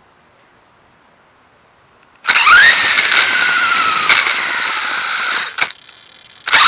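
Dromida DB418 RC car's electric motor whining as the car takes off hard, its pitch rising quickly then slowly falling, with loud rattling road noise, for about three seconds. A second short burst comes near the end.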